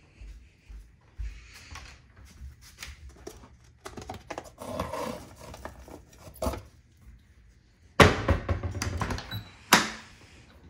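Kitchen handling sounds: an under-sink cabinet opened and plastic detergent bottles shuffled, then about eight seconds in a dishwasher door pulled open with a clatter of its racks and dishes, followed by a sharp knock.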